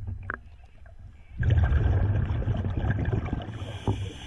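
Scuba diver exhaling through the regulator underwater: a burst of bubbles starts about a second and a half in and lasts about two and a half seconds.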